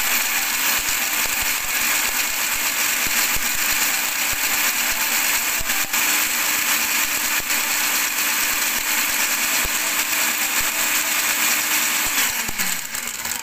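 Countertop blender motor running steadily as it blends a melon smoothie of melon, ice and milk. Near the end it is switched off and winds down, its pitch falling.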